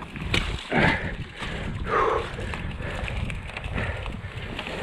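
Irregular footsteps squelching on a waterlogged, muddy trail as bikes are pushed along, with a few louder steps about one and two seconds in.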